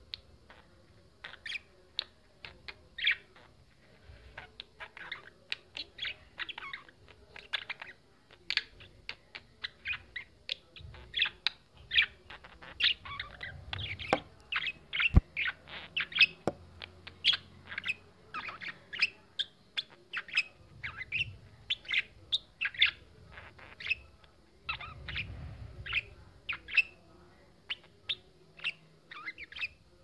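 Budgerigars chirping, a busy stream of short high chirps that thickens in the middle and again later, with a few sharp ticks midway.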